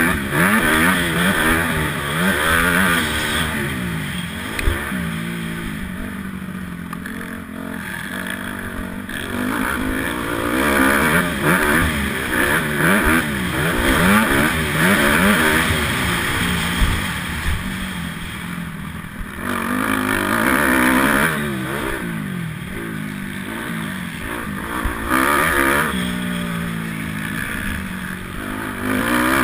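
Honda 250R motocross dirt bike engine under hard riding, revving up and down over and over as the rider works the throttle and gears, its pitch rising and falling every second or so.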